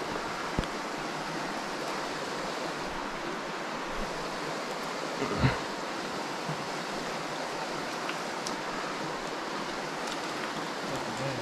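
Small mountain creek running over a rocky bed, a steady rush of flowing water. A brief thump about halfway through.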